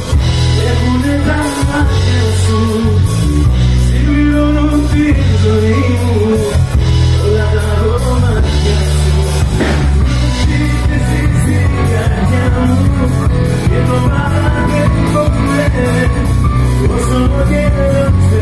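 Live band playing loud and continuously, with a male singer's amplified vocals over bass, keyboard and guitar.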